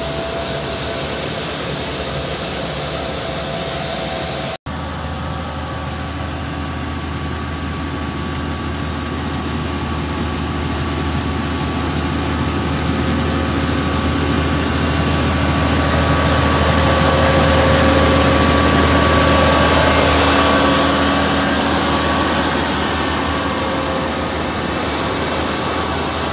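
Iseki HJ6135 six-row rice combine harvester running under load as it cuts rice: a steady diesel engine drone with a few whining tones from the machine. There is a momentary break about four and a half seconds in, and the sound grows louder toward the middle as the machine comes close, then eases off.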